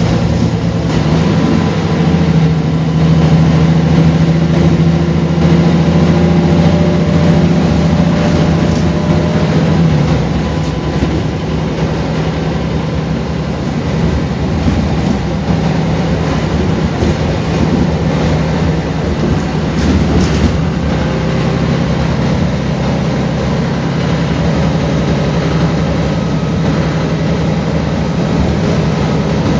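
Mercedes-Benz O405GN articulated city bus running with a steady low engine drone. It is a little louder in the first ten seconds, then eases off slightly and runs on evenly.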